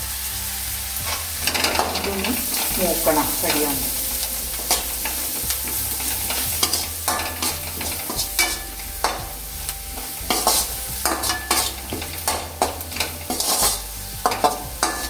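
Steel spoon stirring chopped onion, crushed chillies, curry leaves and spice powders frying in hot coconut oil in a metal kadai. A steady sizzle runs under repeated scrapes and clinks of the spoon against the pan.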